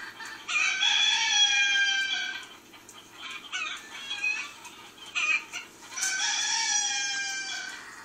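Rooster crowing twice, each crow a long call of about two seconds ending on a slight fall, with a few shorter calls in between.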